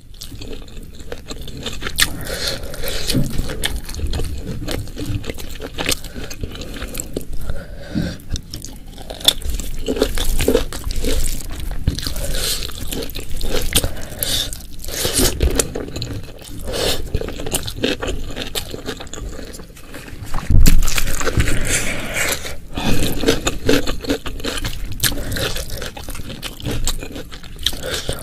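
Close-miked eating: a person chewing and crunching mouthfuls of food with wet, irregular mouth sounds, mixed with occasional scrapes. A louder crunch comes about two-thirds of the way through.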